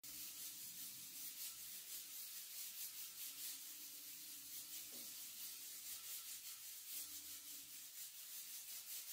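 Pressure cooker on a gas burner hissing steam from its weight valve: a steady high hiss that pulses several times a second, the sign that the cooker is up to pressure.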